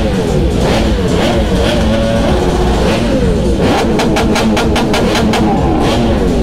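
Supercharged Kawasaki Z H2 with an SC-Project exhaust revving hard at a standstill, the pitch sweeping up and down. About four seconds in comes a rapid stutter of sharp pops, roughly eight a second for over a second: the ignition cut of the launch control holding the revs.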